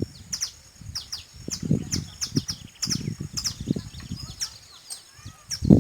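Small birds chirping, a rapid run of short high chirps that each drop quickly in pitch, several a second. Under them come irregular low muffled sounds, the loudest near the end.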